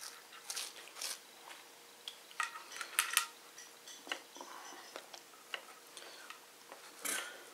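Close-up eating sounds: chewing and mouth smacks, with fingers tearing flatbread and picking rice from a metal baking tray. Irregular small clicks and smacks, the sharpest two about three seconds in.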